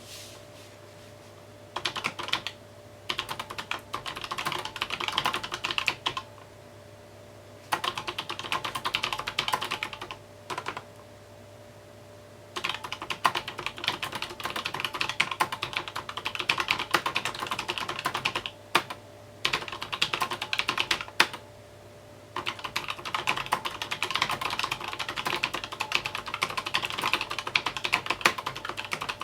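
Fast typing on a mechanical keyboard, in bursts of several seconds broken by short pauses, over a faint steady hum.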